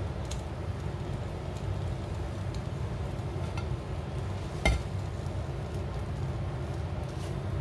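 Rolled tortilla wraps being set into a preheated non-stick frying pan from a plate, with faint light clicks and one sharp knock a little past halfway, over a steady low rumble.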